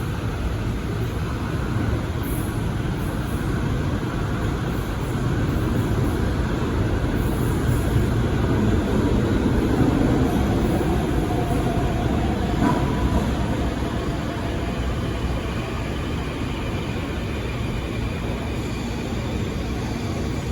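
Rio Metro 4000-series subway train running through the station: a steady low rumble that swells to its loudest about halfway through, with a faint whine in the middle and one click about two-thirds of the way in.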